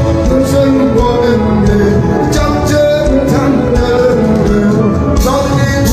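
Worship music with singing over a steady beat of drums and instruments.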